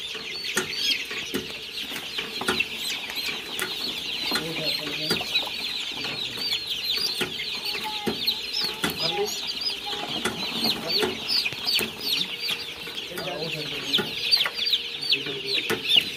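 A crowd of young chicks peeping non-stop: a dense chorus of short, high, downward-sliding peeps, with scattered sharp clicks and a faint steady hum underneath.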